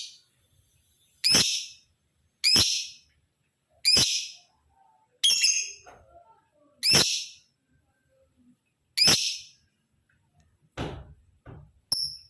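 Male lovebird giving loud, high-pitched single calls, about six of them one to two seconds apart, with a couple of softer calls near the end.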